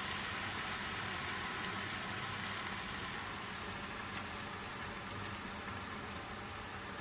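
Food sizzling in a hot pan: a steady hiss that eases off slightly, over a low steady hum.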